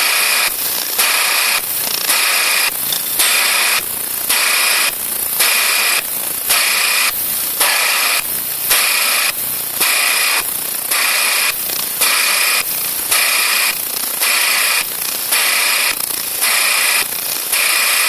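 Ultrasonic vibrating sieve machine running: a loud steady hiss and buzz with a high steady whine, dipping briefly in a regular pulse about once a second.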